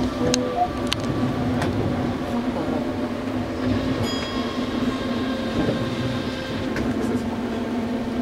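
Osaka Monorail car running, heard from inside at the front: a steady hum with a few sharp ticks, and a higher electric motor whine that comes in for a few seconds in the middle.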